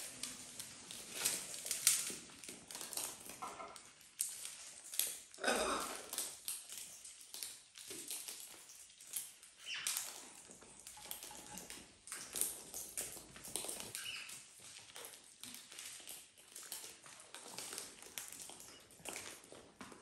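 Parrots feeding from a metal tray of seed mix: irregular taps, clicks and crunching of beaks working the seeds and knocking the tray. A louder, fuller sound stands out about five and a half seconds in.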